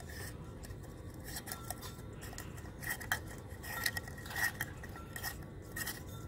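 LED bulb being screwed into a light socket inside a light globe: faint, irregular clicks and scrapes as the bulb base turns in the socket and the bulb knocks against the globe.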